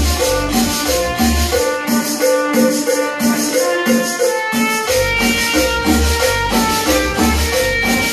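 Cumbia dance music played loud over a sonidero DJ's sound system, with a steady beat. The bass cuts out about two seconds in and comes back about five seconds in.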